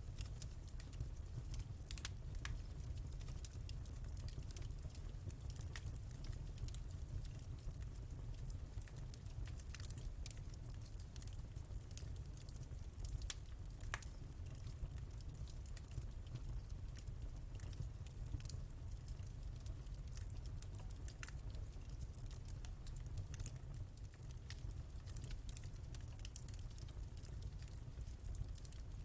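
Wood fire burning in a fireplace: a steady low rumble of the flames with a fine crackle and scattered sharp pops at irregular moments.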